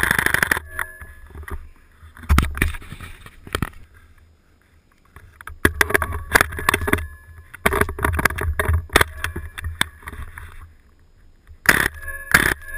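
WE PDW gas blowback airsoft rifle firing in several runs of rapid sharp cracks, with the bolt cycling on each shot and pauses of a second or more between runs. A low rumble sits underneath.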